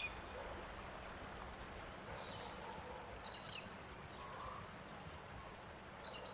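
Steady faint rush of a flooded river flowing through trees, with a few short high bird chirps about two, three and six seconds in.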